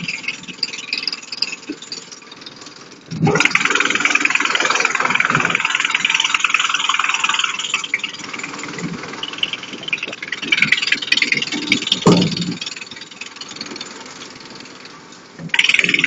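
Drum wood chipper chipping branches: long stretches of loud chipping noise, with a heavy thump twice as a load of wood hits the drum. It drops back to the quieter sound of the machine running light between feeds, then picks up again near the end.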